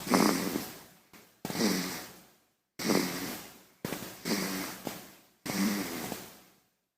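Baby snoring: about six short breaths in a row, each starting abruptly and fading away over about a second.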